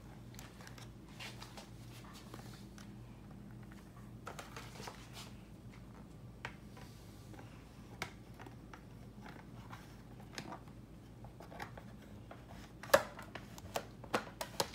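Handling noise from a plastic Shopkins display case on a stone countertop: faint scattered clicks and rustles, with a few sharper plastic clicks and knocks near the end.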